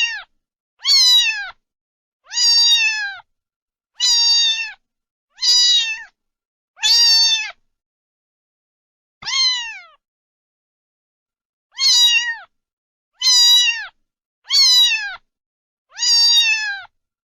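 Cat meowing over and over, high-pitched meows about one every second and a half, each falling in pitch at the end, with a longer pause near the middle.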